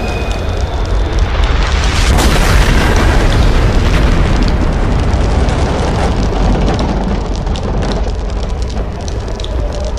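Loud rumbling explosion and boom sound effects with a swell about two seconds in and scattered crackles later, laid over music.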